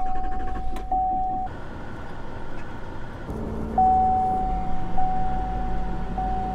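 Cab of a GMC Sierra 2500HD with its 6.6-litre Duramax V8 turbo-diesel running underneath. An electronic warning chime sounds over it as a steady tone; it cuts off about a second and a half in, then comes back past the middle, restarting about once a second.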